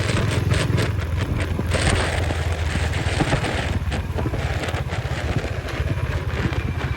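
Royal Enfield Bullet's single-cylinder engine running as the motorcycle rides along, a steady low rumble, with wind buffeting the microphone.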